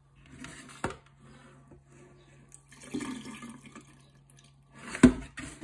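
Soaking water being poured off glutinous rice from a plastic container into a stainless-steel sink, splashing and trickling, with two sharp knocks about a second in and near the end.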